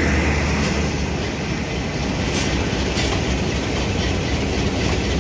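Passenger coaches of the Pakistan Express rolling past close by: a steady rumble of wheels on rail, with a couple of light clicks over rail joints about halfway through.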